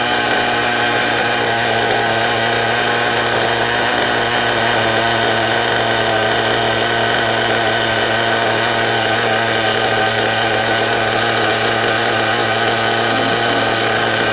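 Small nitro engine of a remote-control car running steadily at one unchanging pitch.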